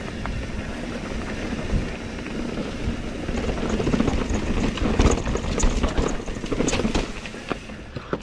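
Mountain bike rolling down a dirt singletrack over leaf litter: a steady rumble of wind buffeting the camera microphone and tyre noise, with a run of knocks and rattles from the bike over bumps about five to seven seconds in.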